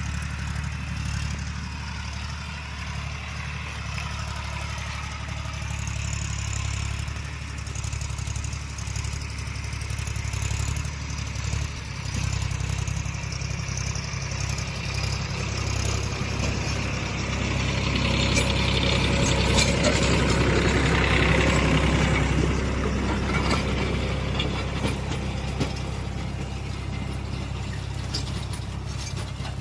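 Diesel tractor engine running steadily. It grows louder and harsher for several seconds about two-thirds of the way through, then eases back.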